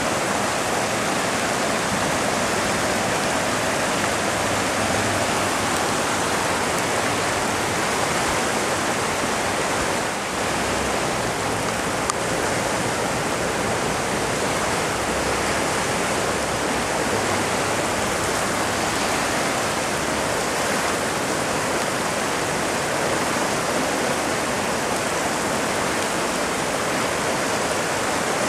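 Storm runoff rushing down a concrete flood-control wash, churning white where it spills out from under a bridge. A steady, even rush of water with no let-up.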